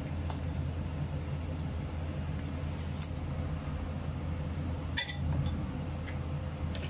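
A ladle stirring a pot of soup and knocking against the pot a few times, the clearest knock about five seconds in, over a steady low hum.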